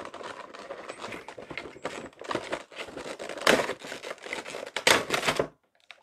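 Cardboard toy box with a clear plastic window being opened and handled: crinkling and rustling of the packaging, with louder bursts about three and a half and five seconds in, stopping shortly before the end.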